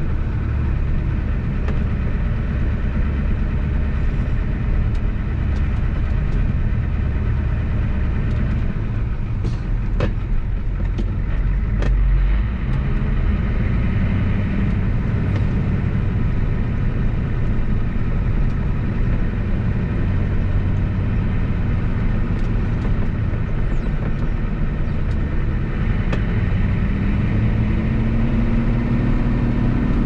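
1988 Ford F-250's 7.3 IDI diesel engine running as the truck drives slowly, heard from inside the cab. Two sharp clicks sound near the middle.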